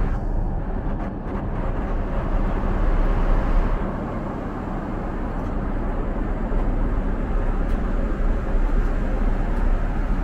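Steady cabin noise of a Boeing 777-300 airliner in flight: an even, low rush of airflow and engine noise with no distinct events.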